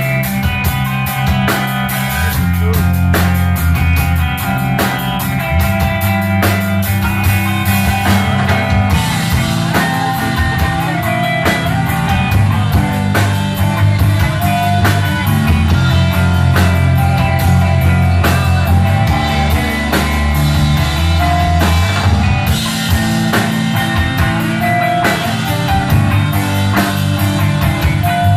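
Live rock band playing an instrumental passage, with electric guitars, bass and a drum kit keeping a steady beat.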